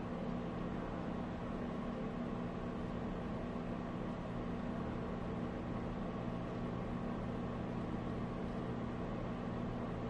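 A steady mechanical hum with a hiss over it, unchanging throughout; no bird calls.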